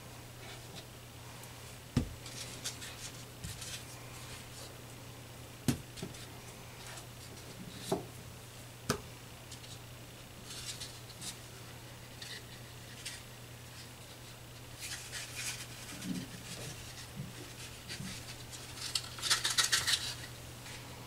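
Hands preparing food on a floured countertop: several sharp knocks of utensils on the counter, with scraping and rubbing of dough and filling in between and a louder flurry of rubbing near the end. A steady low hum runs underneath.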